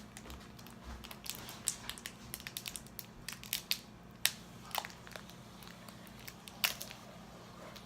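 Irregular small clicks and crinkles of a plastic glitter container being handled as blue glitter goes into the glue, with two sharper clicks about four and six and a half seconds in.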